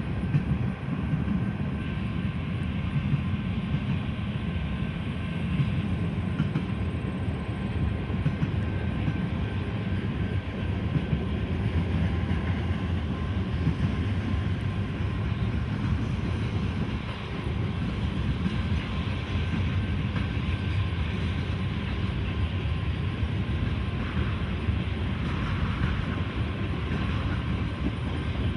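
A train rolling past with a steady rumble of wheels on the rails.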